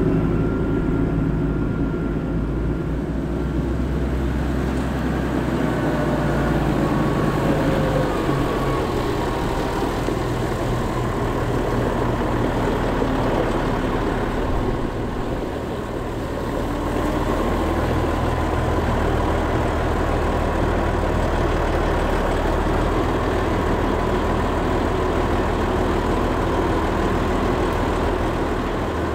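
Farm tractor's diesel engine running steadily as it drives and manoeuvres, heard first from inside the cab and then from outside.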